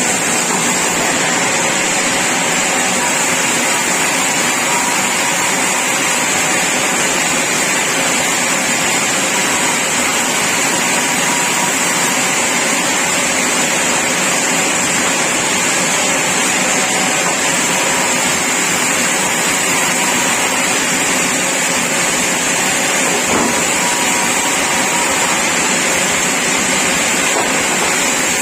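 Sawmill saw running steadily, a loud, even, high-pitched hiss that doesn't change.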